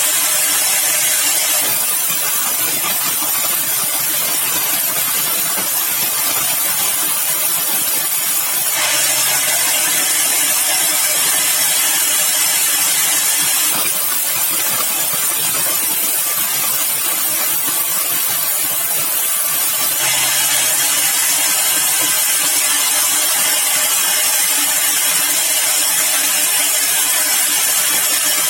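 Sawmill machinery running continuously, a loud steady hissing noise whose tone shifts every several seconds as the load changes.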